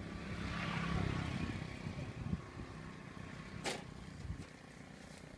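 A motor vehicle's engine passes by, growing louder to a peak about a second in and then fading away. A single sharp click comes a little before the end.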